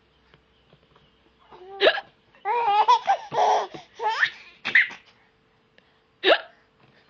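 A woman hiccups and a baby answers with a run of laughter lasting about two and a half seconds; another hiccup comes near the end.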